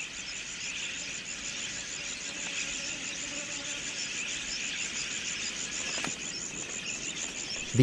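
Wild budgerigars in a flock, a dense, steady mass of high chirping calls.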